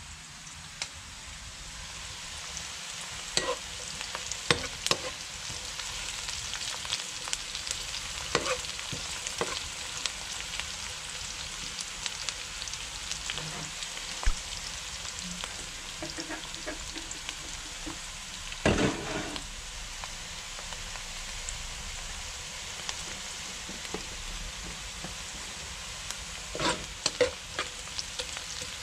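Chopped onion sizzling steadily in hot oil in a wok-style pan, with a metal spoon clinking and scraping against the pan now and then as it is stirred.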